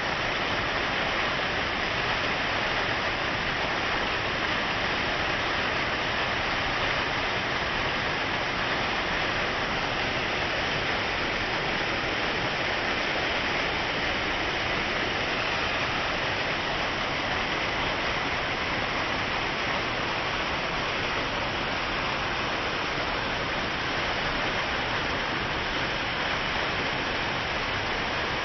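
Waterfall striking rock and spreading down a sloping rock face: a steady, even rush of falling water.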